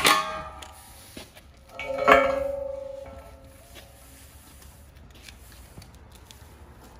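A cordless impact wrench's last burst on an anchor nut cuts off right at the start. About two seconds in comes a single sharp metal clang with a clear ringing tone that dies away over about a second.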